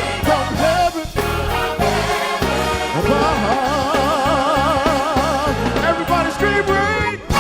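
Gospel choir and band performing, the voices holding long notes with a wide vibrato in the closing bars of a song.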